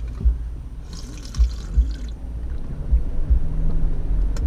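Carbonated energy drink fizzing and sloshing in an opened aluminium can being handled, with a burst of high fizzing hiss about a second in and a few soft low thumps.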